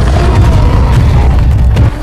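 Loud, deep dinosaur sound effect that starts abruptly after a brief silence, holds for nearly two seconds, then cuts off near the end.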